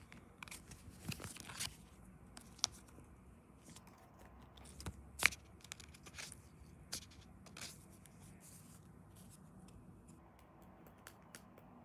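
Pokémon trading cards and a piece of thin clear plastic being handled: faint rustles, crinkles and card flicks, the sharpest about five seconds in, thinning to a few light ticks in the last few seconds.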